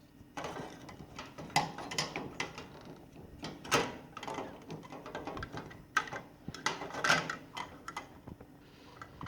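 Irregular plastic clicks and knocks of a gas stove knob being handled and pushed back onto its stem inside a clear plastic knob cover.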